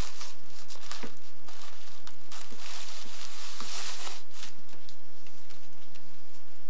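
Green tissue paper rustling and crinkling in irregular bursts as hands rummage through it inside a gift bag.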